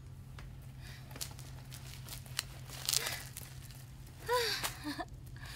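Quiet location sound with a steady low hum and scattered light clicks, broken about four seconds in by a young woman's short vocal sound, a brief 'mm'-like utterance with rising and falling pitch, with a second small one just after.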